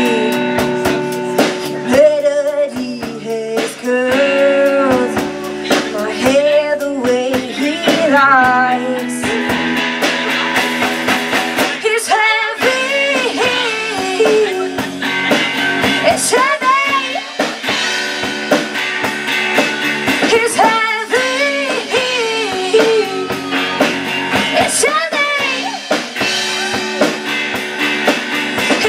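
A rock band playing a song, with singing over electric guitar, bass guitar and a drum kit.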